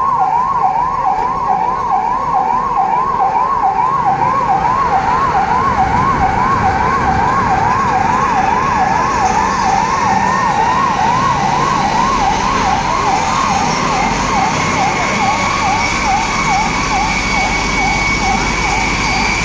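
Electronic siren wailing fast, its pitch sweeping up and down about twice a second. From about four seconds in, a second, higher siren tone climbs slowly and steadily, over a low rumble.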